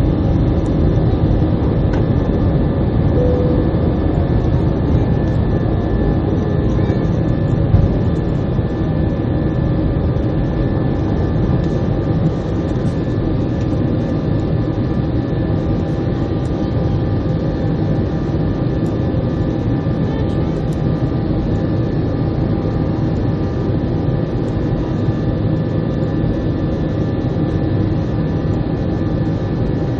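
Jet airliner engines running, heard from inside the passenger cabin: a steady loud rush with several steady tones running through it.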